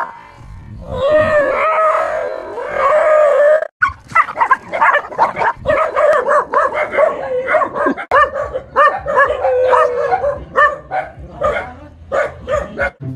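A frightened dog howling and yelping: long wavering cries at first, then, about four seconds in, a fast run of short yelps and barks.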